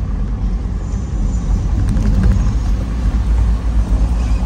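Steady low rumble of a car driving on a city road, heard from inside the cabin: engine and tyre noise.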